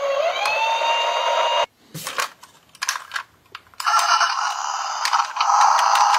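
A toy police car's electronic siren wails with a rising pitch, then cuts off abruptly under two seconds in. Scattered plastic clicks and knocks follow as toy cars are handled in a cardboard box. About four seconds in, another toy police car's siren starts up, its wail rising near the end.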